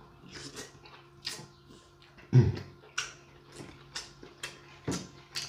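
A person eating seafood close to the microphone: wet chewing and lip smacks, with a louder low thud about two and a half seconds in.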